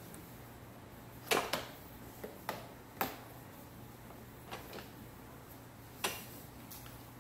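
Hard plastic parts of a Bissell PowerForce Helix upright vacuum being handled and fitted during assembly: a string of about eight sharp clicks and knocks, the loudest just over a second in.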